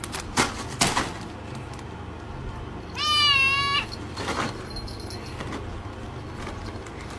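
A pet's single high cry about three seconds in, lasting under a second, its pitch wavering up and down. A few short knocks come before and after it.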